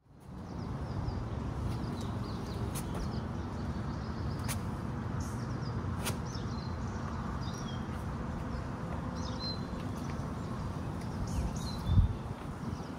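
Forest ambience: a steady low rumble with small birds chirping now and then, and a few faint clicks. A single low thump comes near the end.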